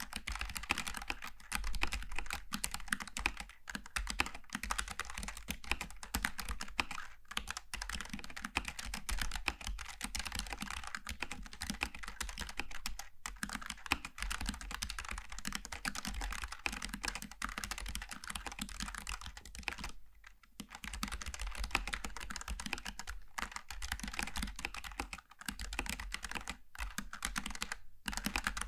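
Steady, fast typing on a Logitech G915 TKL low-profile mechanical keyboard with tactile GL switches: a dense run of light key clicks and keystroke clacks, with a brief pause about twenty seconds in.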